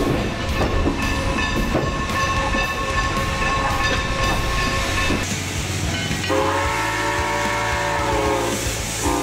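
Steam locomotive whistle blowing long held blasts: one sustained blast, a brief break, then a second shorter blast starting about six seconds in.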